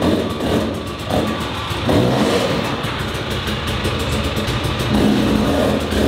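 Enduro motorcycle engine revving, its pitch rising and falling as the throttle is worked.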